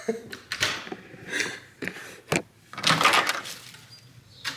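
A door being unlatched and opened: a few sharp clicks and knocks, and a longer rushing slide about three seconds in.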